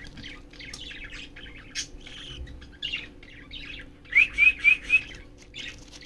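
Budgerigars chattering with rapid short chirps, then four quick rising chirps in a row about four seconds in, the loudest part, over a faint steady hum.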